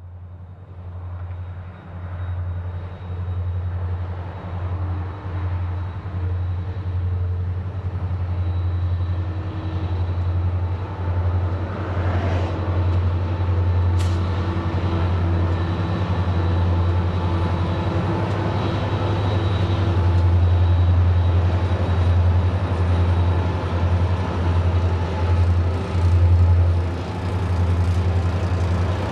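Several diesel-electric locomotives, a QR National unit leading streamliner diesels, working a freight train up the grade. A deep, pulsing engine throb grows steadily louder as they approach and pass, with one sharp click about halfway through.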